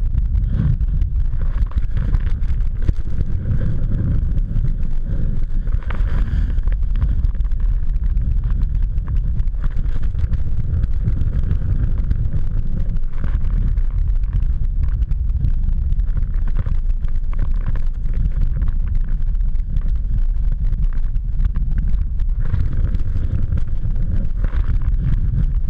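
Heavy wind buffeting on an action camera's microphone while sliding down a snowy slope: a steady low rumble with the rushing of snow underneath.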